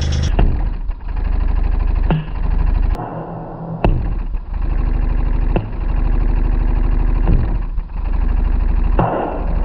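Bass-heavy electronic song played through a Blackweb RumbleTek Bluetooth speaker, with a deep bass pulse and a downward sweep about every two seconds. It doesn't sound good because four of the case screws are already out.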